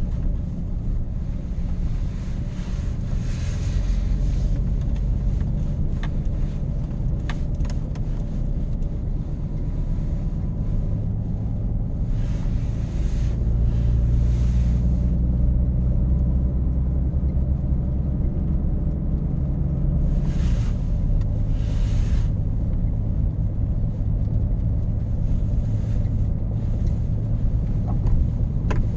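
A truck's engine running with a steady low rumble, and a few brief hissing swells over it.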